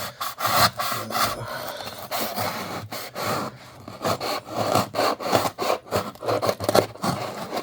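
A cardboard shipping package being handled and opened by hand: irregular scraping and rubbing with many sharp clicks and crackles.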